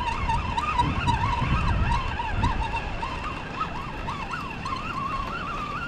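Spinning fishing reel being cranked to retrieve a heavy crab snare, its gears giving a continuous wavering whine whose pitch shifts with the cranking, over a low rumble.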